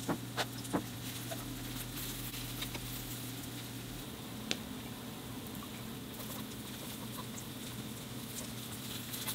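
A few light clicks or taps, three in quick succession in the first second and one more about four and a half seconds in, over a steady low hum.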